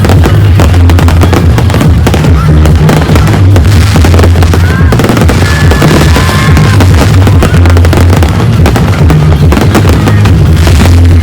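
Loud music with a heavy, steady bass line, over the rapid crackling and bangs of aerial fireworks going off.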